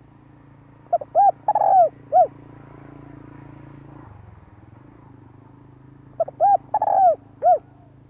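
Spotted dove cooing: two phrases about five seconds apart, each a quick run of four or five arching coos with one longer note among them.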